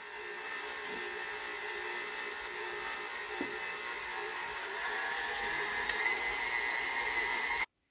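KitchenAid stand mixer's motor running steadily, beating a bowl of buttercream icing (butter, icing sugar and vanilla). It gets a little louder about five seconds in and cuts off suddenly near the end.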